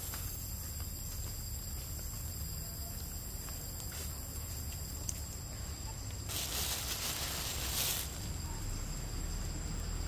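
Forest ambience: a steady high drone of insects over a low rumble, with a burst of hiss about six seconds in that lasts a second and a half, and a few faint ticks.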